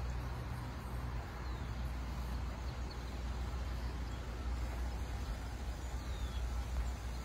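Steady low rumble of wind buffeting the microphone while moving along a paved path.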